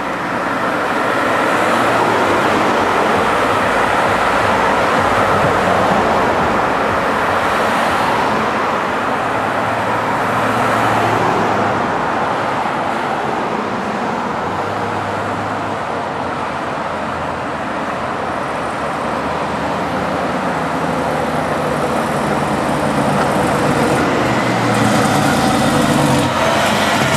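Steady road traffic noise from cars passing on a multi-lane street. Near the end a fire engine's engine grows louder as the truck drives close past.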